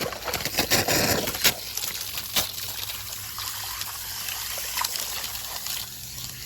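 Garden hose spraying water onto a robotic pool cleaner's filter basket and mesh screen, rinsing out the debris. The spray is heavier for the first second or so, then settles into a steady hiss, with a couple of brief knocks.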